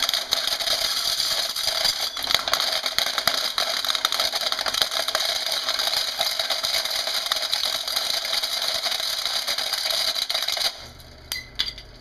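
Garbage disposal running with a small metal timer motor dropped into its grinding chamber, a loud continuous rattling and grinding of metal parts being chewed up. It stops suddenly about eleven seconds in, followed by a couple of small clicks.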